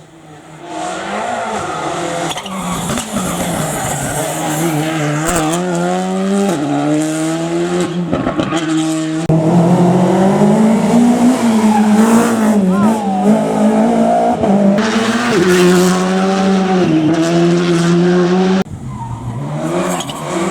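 Rally cars at full attack on a special stage: engines revving hard, pitch climbing and dropping through gear changes and lifts, with tyre noise. Several abrupt cuts between passes.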